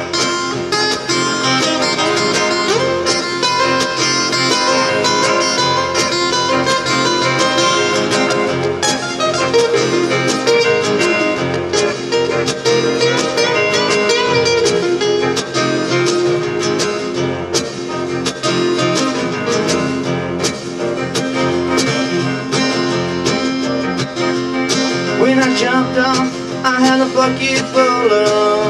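Live country band playing an instrumental break, with guitar out front over keyboard and rhythm.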